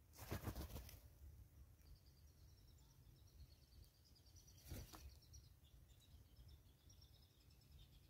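Grey go-away-bird's wings flapping in a brief burst as it takes off about half a second in, then a second, shorter flutter of wings near five seconds. Faint rapid high chirping of small birds runs under the rest, the whole scene quiet.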